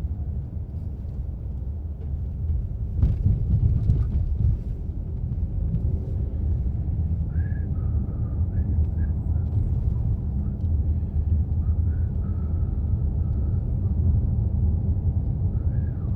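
Steady low rumble of a car on the move, road and engine noise heard from inside the cabin, swelling louder for a moment about three to four seconds in.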